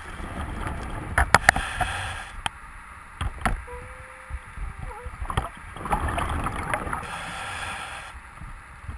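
A scuba diver's exhaled bubbles rush out of the regulator in two long breaths about five seconds apart, with sharp clicks and a brief thin whistle in between.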